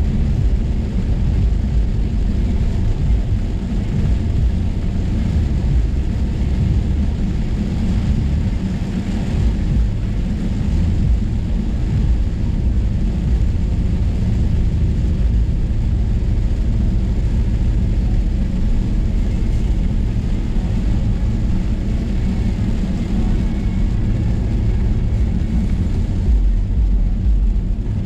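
Steady low rumble of a Range Rover Sport cruising on a wet highway, heard from inside the cabin: engine and tyre noise on the rain-soaked road.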